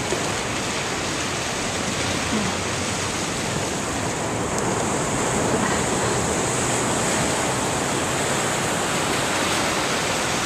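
Ocean surf washing over a shallow beach: a steady, unbroken rush of small breaking waves and moving water.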